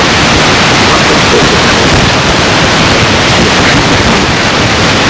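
Loud, steady hiss from a noisy old interview recording, like static, with no clear speech above it.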